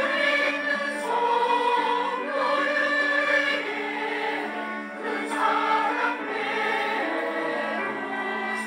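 Church choir singing a Korean praise anthem in several voice parts, with long held notes.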